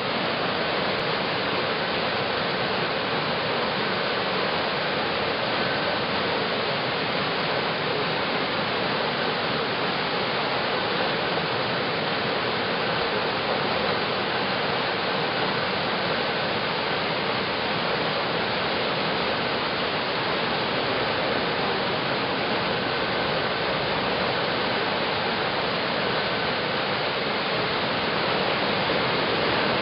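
Steady rushing of flowing water at a waterwheel, an even hiss without knocks or rhythm.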